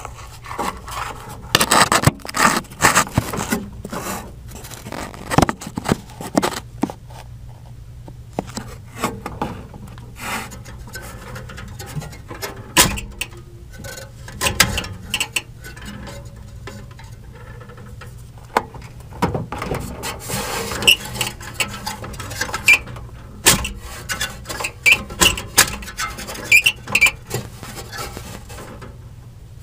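Irregular metallic scraping, rubbing and clicking inside an air handler's squirrel-cage blower housing as the unplugged blower wheel is handled by hand, checking what is rubbing; something is caught in the wheel.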